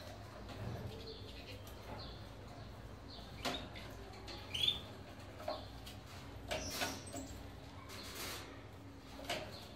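Canaries and finches bathing in a plastic door-hung cage bath: short bursts of splashing water and fluttering wings, several times, the busiest spell about two-thirds of the way through.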